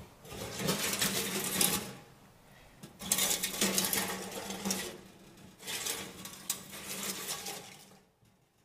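Sheet-metal stovepipe scraping and rattling as it is twisted and pushed into the collar of a homemade sheet-metal box stove, in three bursts.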